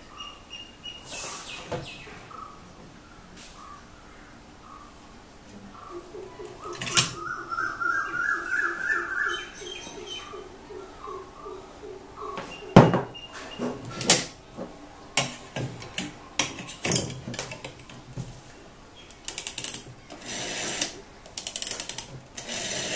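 A bird chirping in the background, with a fast rising run of notes in the first half. From about halfway there are sharp clicks and knocks as a brass candlestick telephone and its earpiece are handled. Near the end comes the ticking rasp of its rotary dial being wound round by a finger.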